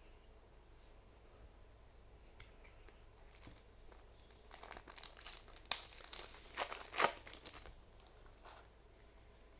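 Foil wrapper of a trading-card booster pack crinkling and tearing as the pack is opened, with a dense run of crackling about halfway through after a few light rustles.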